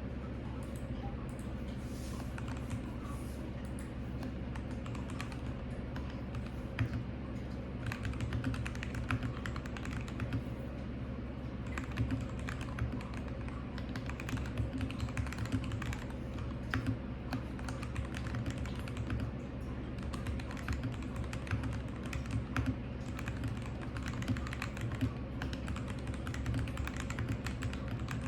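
Typing on an RK G68 mechanical keyboard with lubed Kailh Box Red linear switches and cherry-profile keycaps: a stream of soft key clicks, sparse at first and then faster and steady, over a low steady hum.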